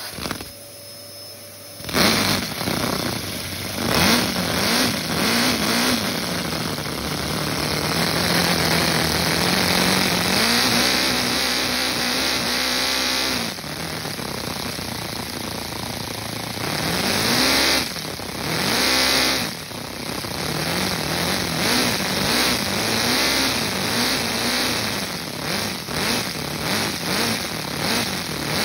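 LEGO vacuum engine, an inline four-cylinder with square-head valves, running on vacuum suction and being revved. Its pitch rises and falls over and over, after it picks up sharply about two seconds in.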